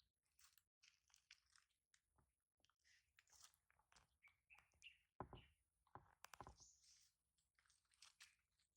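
Faint, irregular chewing and clicking sounds, with a few slightly louder ones about five to six and a half seconds in.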